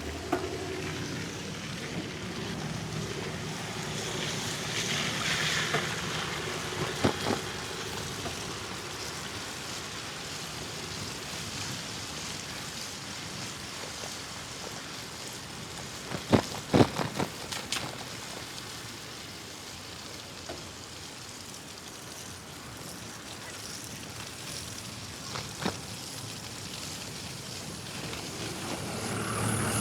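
Steady wind and road noise from riding a bicycle on a city street, with traffic sound around it. A quick cluster of sharp knocks comes about seventeen seconds in, with a few single knocks elsewhere.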